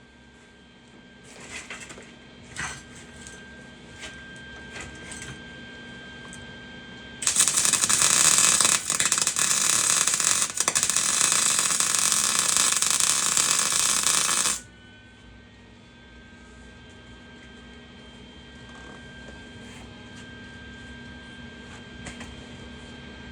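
Flux-core wire-feed welder arc crackling in one continuous weld bead of about seven seconds, starting about seven seconds in and cutting off sharply. Before and after it, a faint steady hum with a few light clicks.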